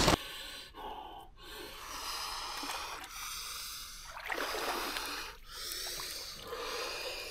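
A person breathing hard in and out, each breath about a second long with short pauses between.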